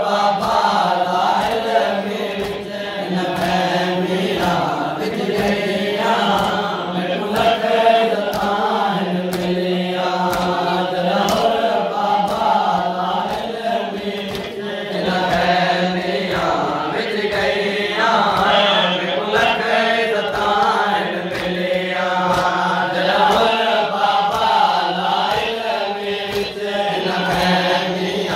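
A noha, a Shia lament for Muharram, chanted by a lead reciter with a crowd of men singing along in unison, over a steady beat of hands slapping chests in matam.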